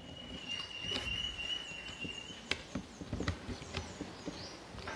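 A budget aluminium tripod with a plastic three-way head being handled on a table: several sharp clicks and knocks in the second half as its parts are fitted and set. A steady high-pitched tone runs underneath and stops about halfway, with faint high chirps.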